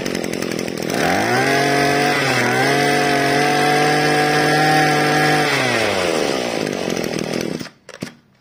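Maruyama 26cc two-stroke brush cutter engine running, revved up about a second in and held high for around four seconds, then dropping back to idle. The sound cuts out briefly near the end.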